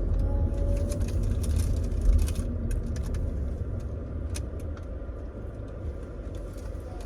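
Steady low rumble of a car cabin on the move, with scattered light clicks and rustles.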